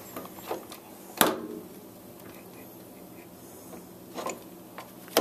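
Metal clicks and clunks of a lathe's quick-change threading gearbox knobs and levers being shifted to set it for 24 threads per inch. The loudest clunk, about a second in, rings briefly, and a few more come near the end, over a faint steady hum.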